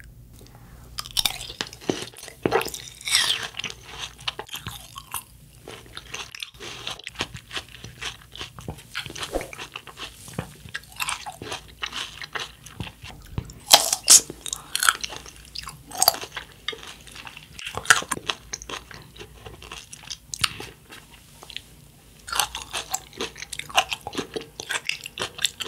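Close-miked chewing and crunching of a mouthful of watermelon hwachae (watermelon, blueberries, popping boba and ice), in irregular bites with louder crunches now and then.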